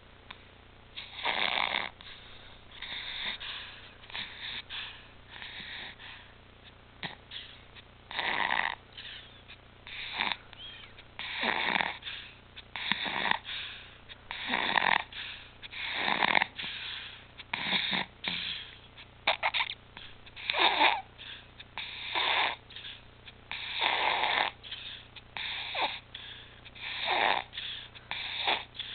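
An infant's noisy breathing with stridor, about one breath every one and a half seconds, some breaths louder and longer than others. Stridor is the sign of a narrowed upper airway.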